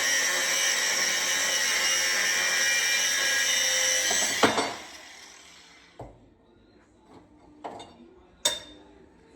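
Angle grinder running with a steady high whine. About four and a half seconds in it stops with a sharp knock and winds down. A few separate knocks of metal being handled follow.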